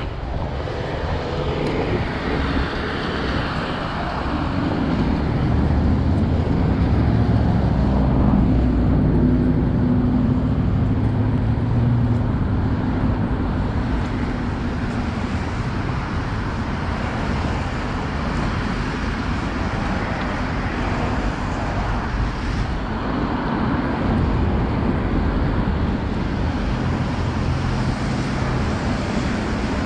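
Road traffic passing on a wet city boulevard: a steady noise of cars going by, with one vehicle's engine hum standing out about a third of the way in.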